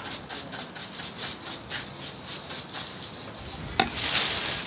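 Abrasive sanding pad rubbed back and forth over a plastic headlight lens in quick, even strokes, several a second. Near the end comes a sharp click and a short, louder hiss.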